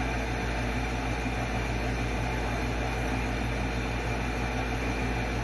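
Steady low machine hum with an even hiss.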